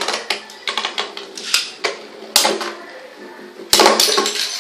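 Two Beyblade spinning tops, a Hell Crown and a Spriggan, clashing in a plastic stadium: a run of sharp clacks and rattles of varying strength, with the hardest hits about one and a half seconds in, near two and a half seconds and around four seconds in.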